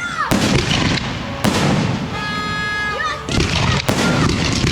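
Aerial fireworks going off: several sharp bangs over continuous crackle, with a steady high whistle about two seconds in.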